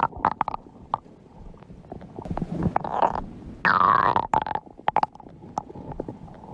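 Stomach growling and gurgling: a run of short gurgles and pops, with a louder, squeaky growl about three and a half seconds in that falls in pitch.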